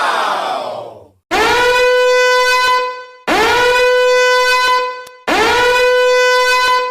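A meme 'cringe' alarm sound effect: a buzzing horn sound falls in pitch for about a second, then sounds three long, identical blasts at the same pitch, each nearly two seconds long with a short break between them.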